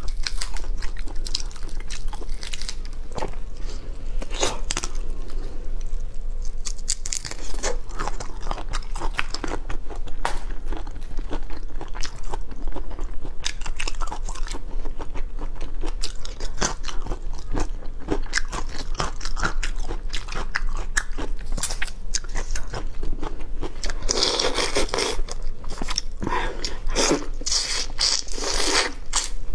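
Close-miked eating sounds: shrimp shells being cracked and peeled by hand, then crunching and chewing, with a constant run of wet clicks and crackles. Louder crackling comes in bursts near the end.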